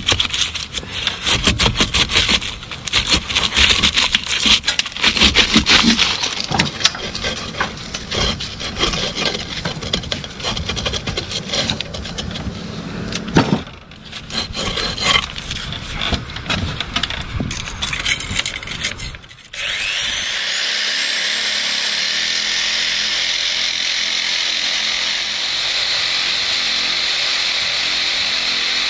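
Hand tools working loose brickwork and mortar: rapid, irregular scraping and knocking that stops abruptly about two-thirds of the way through. It gives way to a steady, even rushing noise.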